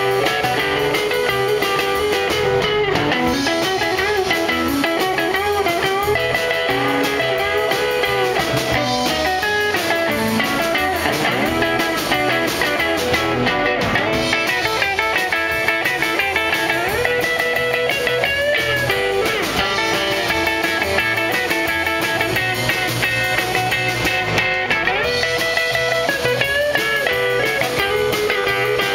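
Live band playing an instrumental passage: a hollow-body electric guitar plays lead lines with bent notes over drums and a second guitar.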